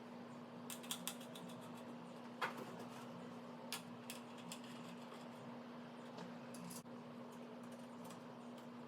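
Scattered light clicks and taps of small screws and case parts being handled while an MXC M2 Pro miner is screwed back together, over a steady low hum.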